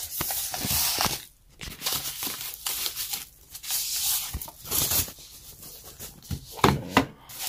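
Thin plastic bag crinkling and rustling in irregular bursts as a MIDI controller is slid out of it, with a sharper crackle near the end.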